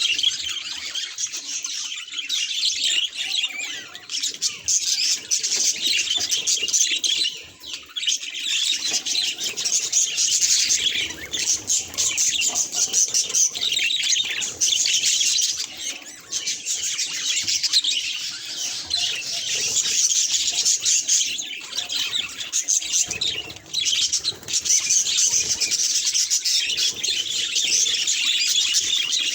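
Budgerigar chattering and warbling without a break, a dense run of fast, high chirps and squawky notes.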